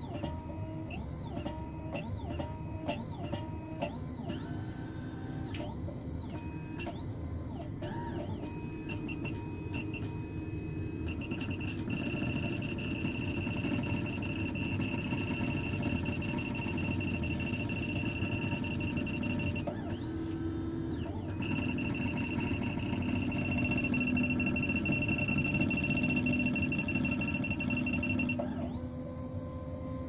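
Sec-9 PRO computerized key-cutting machine cutting a high-security key blank. Its motors whine in short steps that glide up and down in pitch for about the first ten seconds. Then comes a steady high whine as it cuts, which breaks off briefly about twenty seconds in and changes to a lower tone near the end.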